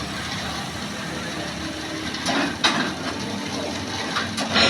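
Electric rebar bending machine running with a steady mechanical noise, with sharp metallic knocks about two and a half seconds in and again near the end as steel bar is bent into column stirrups.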